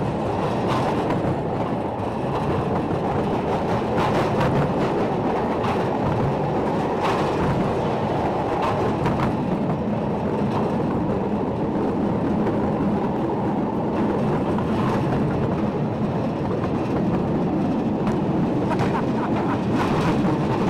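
Steel wheels of open narrow-gauge slate wagons rumbling steadily along the rails as the gravity train freewheels downhill, with occasional sharp clicks from the track.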